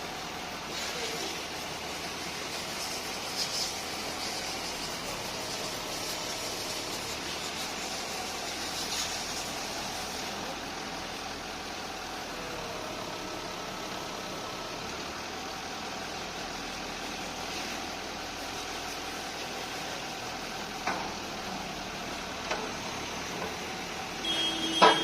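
Tractor engine running steadily, with a few sharp knocks near the end.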